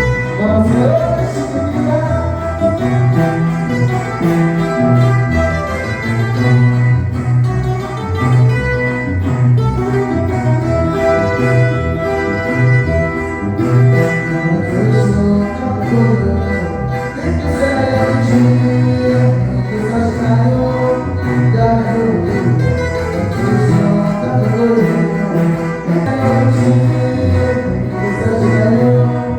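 Tuba band playing live music, with the tuba carrying a bass line of changing notes under the melody.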